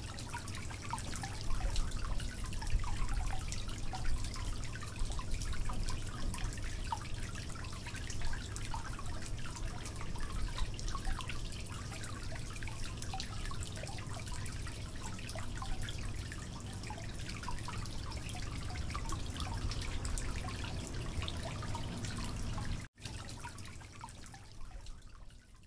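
Water dripping and trickling, many small irregular drips over a steady low hum. It cuts out for a moment near the end and comes back fainter, fading away.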